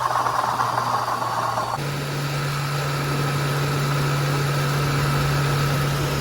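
Ford 4.6-litre V8 of a 2006 Crown Victoria/Grand Marquis idling steadily, with a newly fitted water pump. Its hum steps up slightly in pitch about two seconds in.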